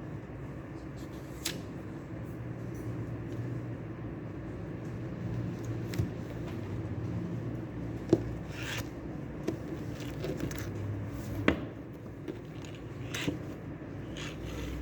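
Steady low rumble of room ambience, with a handful of light clicks and taps from small objects being handled at a desk.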